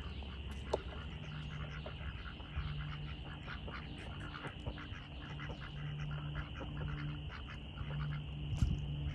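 Domestic ducks quacking in short scattered calls on a pond, over a steady high-pitched chorus of evening frogs or insects. A few louder low thumps come near the end.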